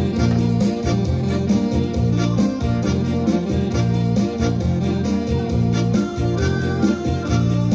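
Live instrumental ensemble music led by electronic keyboards, with a steady, repeating bass line under sustained keyboard chords and melody.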